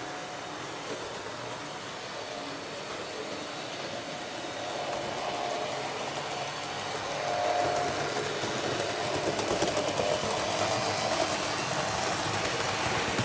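Model NS 1100 electric locomotive hauling its coaches around a model railway layout: a steady whirr of the motor and the wheels running on the rails. It gets louder from about halfway through as the train comes closer.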